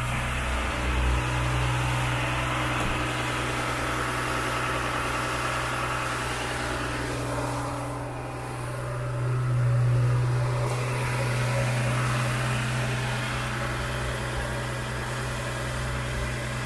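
Aston Martin DB7 Vantage's V12 engine idling steadily from a cold start, a little louder for a moment about ten seconds in.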